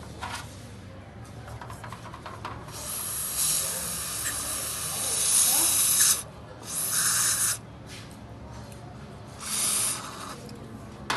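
Three bursts of hissing from a pressurised spray: a long one of about three seconds, then two short ones about a second each, with a few light clicks before them.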